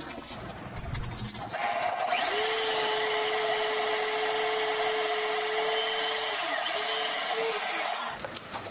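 DeWalt portable band saw cutting through a steel forklift fork. It starts about one and a half seconds in, runs steadily with a held tone through the cut, and stops shortly before the end.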